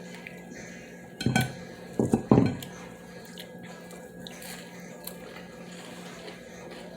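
Cutlery and dishes clinking and knocking at a meal, with two louder knocks a little over a second in and again about two seconds in.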